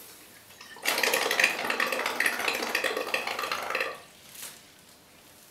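Wine glugging out of an upturned bottle as it is chugged from the neck, a gulping, bubbling rush lasting about three seconds that stops abruptly.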